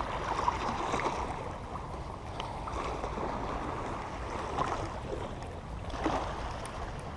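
Steady outdoor rush of wind on the microphone over the wash of water, swelling and easing a little every second or two.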